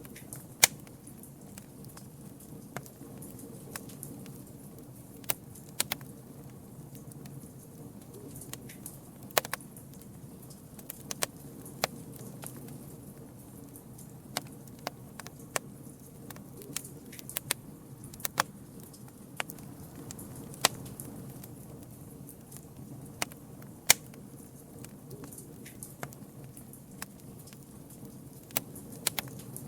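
Wood campfire crackling: irregular sharp pops and snaps, a few much louder than the rest, over a steady low rumble of the burning fire.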